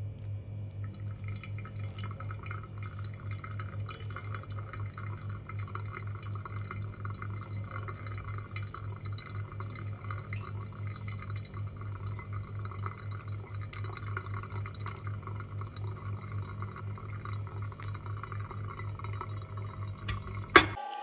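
Hot water poured in a thin stream onto coffee grounds in a pour-over cone dripper, a steady trickle as the slurry fills. A sharp click near the end.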